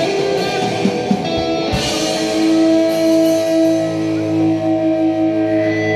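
Live rock band with electric guitars, bass and drum kit playing loud. About two seconds in, a sharp hit lands and the guitars then hold a chord that rings on steadily.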